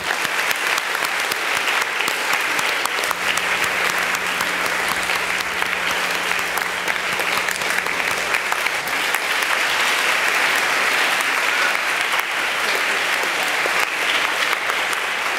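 A large audience applauding steadily. The clapping starts abruptly and holds on evenly.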